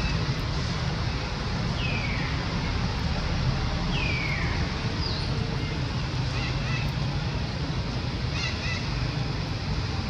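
Steady low rumble and hiss outdoors, with a few short high calls that slide down in pitch about two and four seconds in, and fainter short chirps later.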